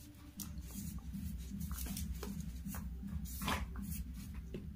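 A dog worrying a jute sack on a hard floor: irregular rustles, scrapes and taps as it bites and drags the cloth, the loudest about three and a half seconds in. A low steady rumble runs underneath.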